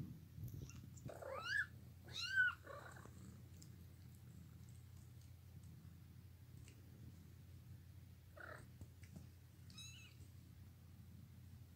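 Newborn kittens mewing over a steady low purr from the nursing mother cat. There are two loud, high mews that rise and fall in pitch, about a second in and again a second later, and fainter mews near the end.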